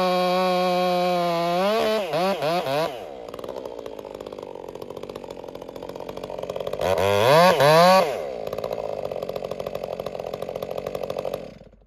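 Two-stroke chainsaw running at full throttle through a cut, then revved in a few quick blips and dropping to idle. A second short burst of revving comes about seven seconds in, then it idles until the engine is switched off and stops abruptly near the end.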